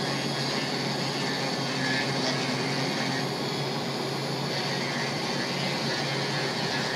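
Small Black & Decker handheld rotary grinder with a coarse sanding drum (about 60 grit) running steadily at low speed, sanding down the high spots on a rubber pistol grip. Not very loud.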